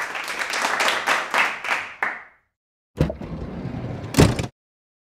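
Hand clapping, a quick run of claps that stops about two and a half seconds in. After a short gap comes a second, rougher burst of noise with a low rumble and one loud hit near its end.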